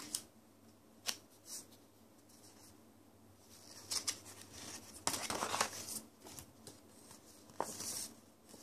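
Paper CD booklet rustling as it is handled and unfolded, with a few sharp clicks from the clear plastic CD case. The longest rustle comes about five to six seconds in.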